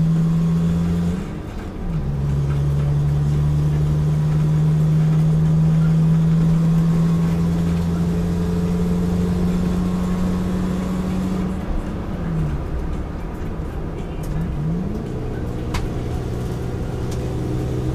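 Racing scrap car's engine heard from inside the cabin, held at steady high revs with a brief dip about a second and a half in. About twelve seconds in the revs fall, rise quickly a couple of times, and the engine then runs at lower revs.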